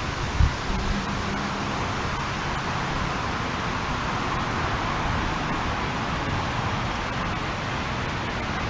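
Steady rushing noise, with two short low thumps about half a second in.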